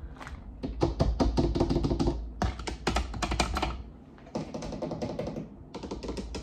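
Clear plastic zip-top bag full of false nail tips crinkling and crackling as it is handled, in several bursts with short pauses between.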